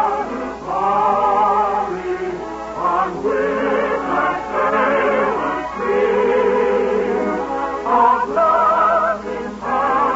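Operetta song with orchestra: operatic singing in long held notes with wide vibrato, in phrases broken by short pauses.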